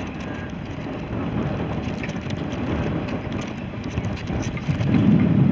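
Wind buffeting the microphone: a low, even rush with no engine note, growing louder near the end.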